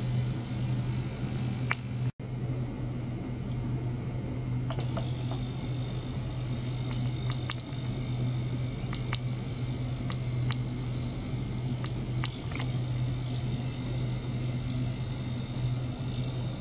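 Small ultrasonic cleaning bath running with a steady low hum, with a few faint clicks scattered through it. The sound cuts out for an instant about two seconds in.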